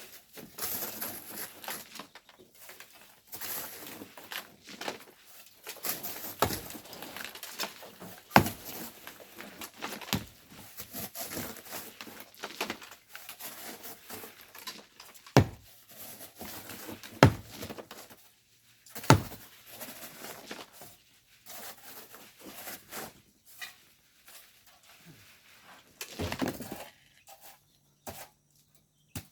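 Hand tools scraping and digging in loose volcanic sand and stones, with a few sharp knocks of metal or stone spaced several seconds apart.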